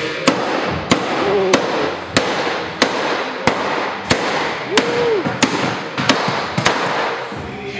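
Sledgehammer striking the sheet-metal pinch weld inside a truck's front wheel well, flattening the seam for tire clearance. About a dozen sharp metallic blows come at a steady pace of roughly one and a half a second, coming a little quicker near the end.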